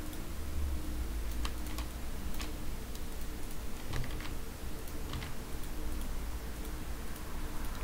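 Scattered single clicks of a computer mouse and keyboard, a few seconds apart, over a steady low hum.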